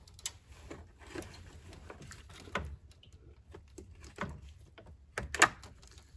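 Old plastic trim clip being gripped and pulled out with a plastic trim clip remover: small clicks and plastic creaks and squeaks as it is worked loose, with louder sharp clicks about five seconds in as the clip comes free.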